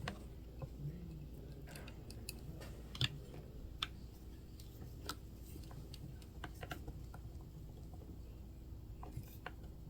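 Scattered light clicks and taps, irregular, a few sharper ones about three to five seconds in, from small tools and parts being handled during an RC truck axle repair, over a faint steady low hum.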